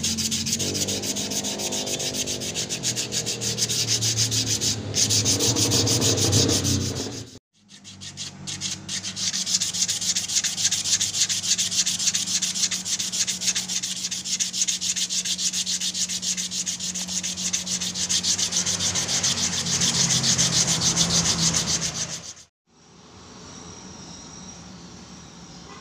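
Hand-sanding a sapodilla-wood knife sheath: quick back-and-forth scratchy rubbing strokes on the wood, cutting off abruptly twice. Near the end the rubbing gives way to faint steady insect chirping.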